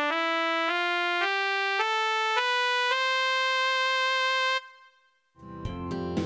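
Casio SA-81 mini keyboard playing its built-in trumpet tone: single notes climbing a major scale, about one every 0.6 s, ending on a held top note that stops suddenly. About a second later a fuller passage with sharp drum hits begins.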